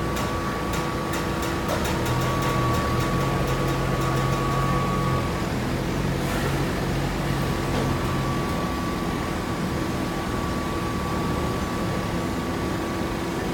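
Hydraulic baling press running: a steady motor-and-pump hum with a thin high whine, a deeper tone joining from about two seconds in until about eight seconds in, and rapid clicking in the first few seconds.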